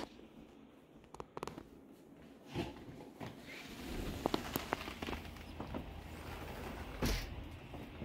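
Quiet footsteps on a wooden deck, with scattered clicks and knocks and a louder thump about seven seconds in.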